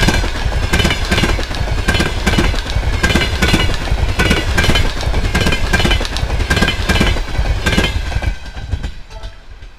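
Passenger coaches of a train running past, their wheels clattering over the rail joints in a steady rhythmic clickety-clack. The sound falls away sharply near the end as the last coach passes and the train draws off.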